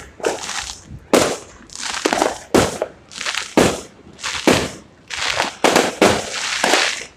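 Aerial fireworks going off in a rapid string of about a dozen bangs, each followed by a short crackling tail as the stars burst into sparkling white sprays.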